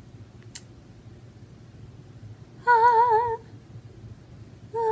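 A woman humming two short held notes on the same pitch with a wavering vibrato, the first a little past halfway and the second near the end.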